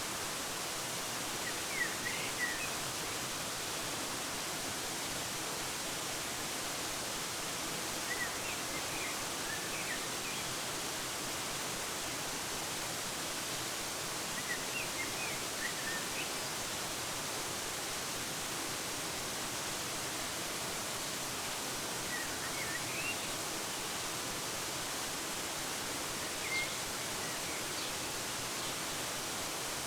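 Steady rush of a waterfall, with short bird chirps coming in small clusters every several seconds.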